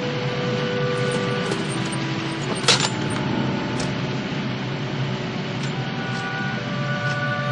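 Cartoon soundtrack of rushing river water under held orchestral notes, with a sharp crack about two and a half seconds in.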